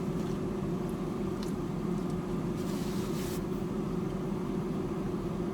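Steady low hum of a running car heard from inside the cabin, with a short rustling noise about three seconds in.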